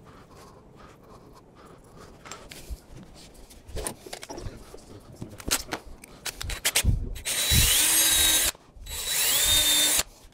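Cordless drill run in two bursts of about a second each, the motor whining up at the start of each. Before that come light clicks and handling of small hardware.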